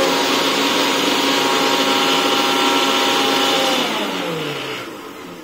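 Electric mixer grinder (mixie) running at speed, grinding coriander and curry leaves. About four seconds in it is switched off and its motor whine falls in pitch as it spins down.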